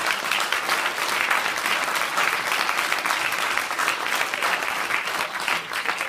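Audience applauding: dense, steady clapping from many hands, starting to thin out at the very end.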